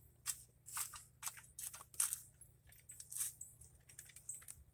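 Irregular rustling and crackling of dry potato vines and soil being handled, about a dozen short, sharp sounds.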